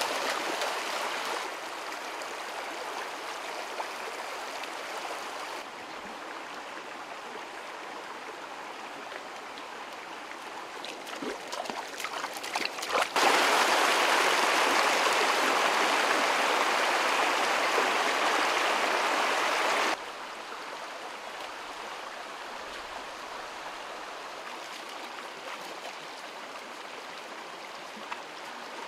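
A shallow, rocky stream running over stones, a steady rush of water. About halfway through it becomes suddenly louder for roughly seven seconds, then drops back to the softer flow.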